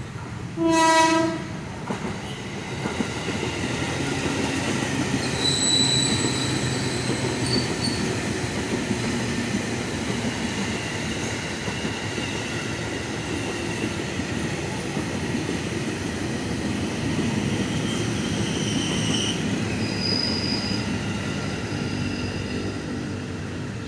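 Commuter electric multiple unit sounding one short horn blast under a second in, then running past with a steady rumble of wheels on the rails. High wheel squeals come through now and then.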